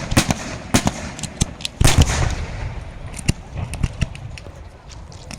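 Aerial fireworks exploding: a string of sharp cracks, with one heavy boom about two seconds in that rumbles on, then scattered bangs thinning out.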